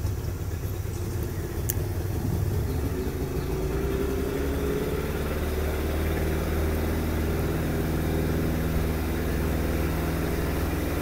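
Outboard motor driving a boat, its pitch rising over the first few seconds as it speeds up, then running steadily.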